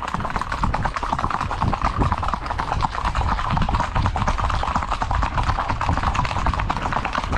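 Horses' hooves clip-clopping in a rapid, even beat as riders move along at a steady gait.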